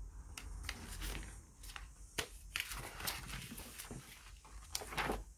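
Pages of a thin paperback picture book being flipped and handled, giving scattered papery rustles and flicks, with a louder one near the end.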